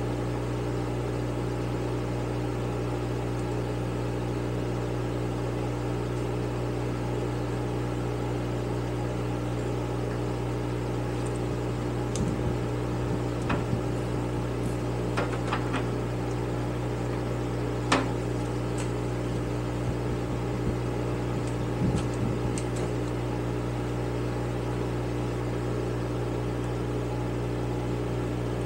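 Steady hum of a running electric shop fan, with a few light clicks of a screwdriver working on a motorcycle carburetor about halfway through.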